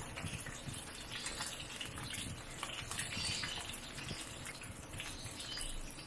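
Breaded chicken wings deep-frying in a wok of hot oil: a steady sizzle full of small crackles and pops.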